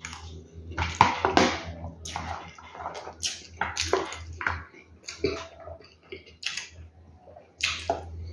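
Close-miked chewing of mouthfuls of rice, beans, cuscuz and pasta eaten by hand. Short, irregular crackling mouth sounds come about one or two a second, over a low steady hum.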